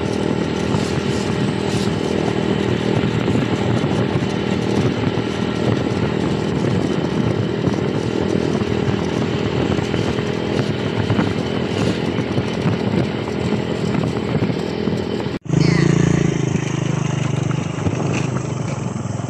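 Small motorcycle engine running steadily while riding, with wind and road noise over it. After a sudden break about fifteen seconds in, the engine note is lower and steadier, with less hiss.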